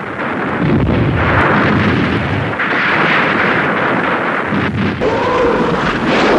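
Massed artillery barrage: guns firing and shells exploding in a dense, continuous rumble with repeated blasts. About five seconds in, a wavering tone that rises and falls joins it.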